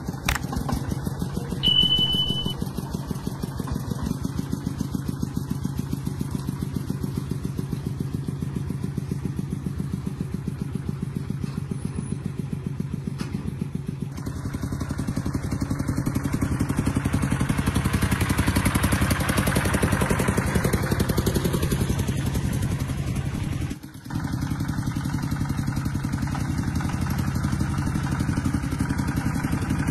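A small engine running steadily with an even rapid beat, getting louder for several seconds about halfway through, then dropping out for a moment near the end.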